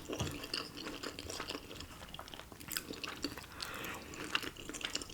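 Close-miked chewing of soft, chewy cheesy ramen and rice cakes, with frequent small wet smacks and clicks of the mouth.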